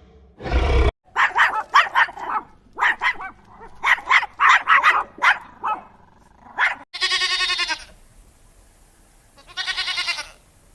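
Sound-effect sequence of animal calls. A short roar-like burst at the start gives way to a dog barking in quick bunches of barks for several seconds. Two separate wavering bleats follow, like a goat's.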